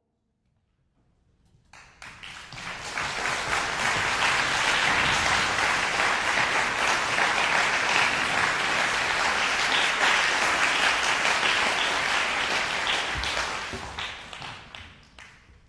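Audience applauding, welcoming the conductor. The clapping builds quickly about two seconds in, holds steady, and dies away near the end.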